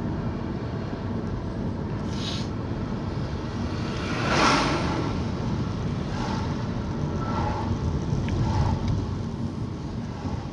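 Steady road and engine noise heard from inside a moving car, with a brief swell of noise about four seconds in as something passes.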